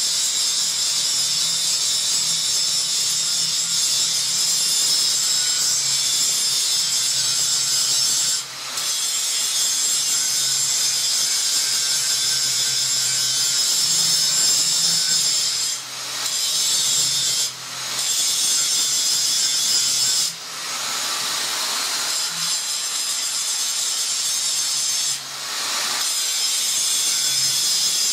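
Angle grinder grinding steel: a steady high hiss of the disc biting the metal over the motor's hum. The sound drops for a moment about five times.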